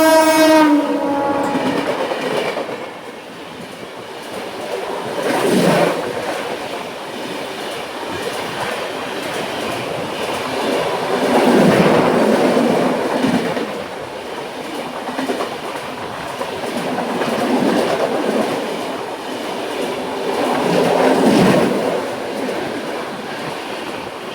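A WAP-7 electric locomotive's horn cuts off about a second in, its pitch sliding down as it passes. Then the express's coaches run past: a steady rolling rumble with wheel clatter on the rails that swells several times.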